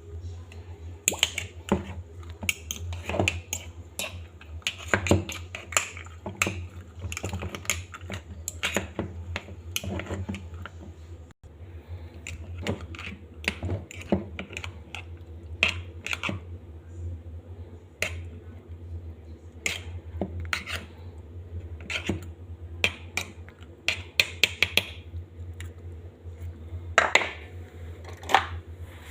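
Irregular sharp clicks and taps of kitchen utensils being handled, over a steady low hum, with a quick run of louder clicks near the end.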